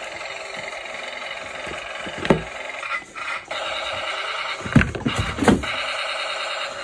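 A steady electronic sound effect, of the kind played from a toy's small speaker, with a short break about three seconds in. Over it come several knocks of plastic toy figures and a toy tank being handled, the loudest just before five seconds in.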